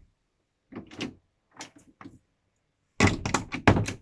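Yacht cabin door being worked: a few light latch clicks, then a quick run of loud knocks and clatter in the last second.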